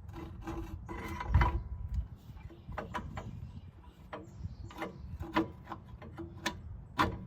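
Hand tools and steel brake parts being worked while 17 mm bolts are fitted to the rear brake backing plate: irregular metal clicks, clinks and scraping, with a few sharper knocks.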